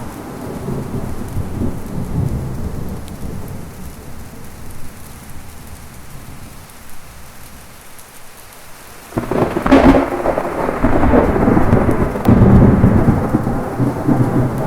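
Thunderstorm with rain: a rolling thunder rumble dies away over the first several seconds, then a sudden loud thunderclap breaks about nine seconds in and rumbles on, swelling again about three seconds later.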